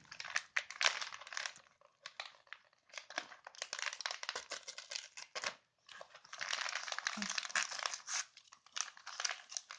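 Gift wrapping paper crinkling and tearing in irregular bursts as a chihuahua's teeth and a person's hands rip it off a box, with brief pauses between the bursts.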